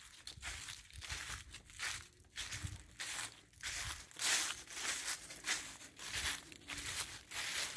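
Footsteps walking through dry fallen leaves, about two steps a second.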